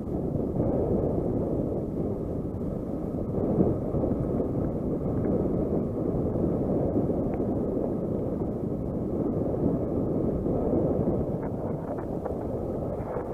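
Wind buffeting the microphone of a camera on a mountain bike rolling fast down a dry, rocky singletrack, mixed with the steady rumble and rattle of the bike over the gravel.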